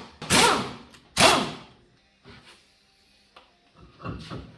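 A power impact wrench spinning ATV wheel lug nuts off with a 14 mm socket, in two short, loud bursts in the first second and a half, followed by softer knocks near the end.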